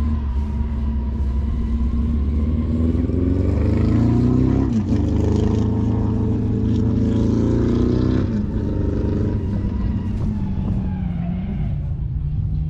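A racing engine revving hard at the drag strip. Its pitch climbs over the first few seconds, dips sharply about five seconds in, holds high, then falls away after about eight seconds, over a steady low engine rumble.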